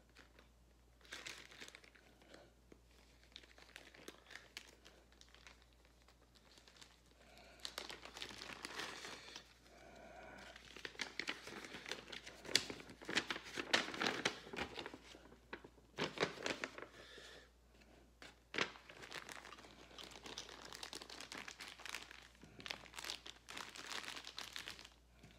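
Small clear plastic zip bag crinkling and rustling as it is handled and opened, getting louder about a third of the way in, with a few sharp clicks in the middle.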